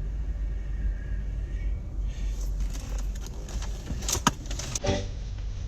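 Steady low road rumble inside a moving car, with a spell of clicking and jangling, like keys or small objects being handled, about two seconds in, ending in two sharper knocks near the end.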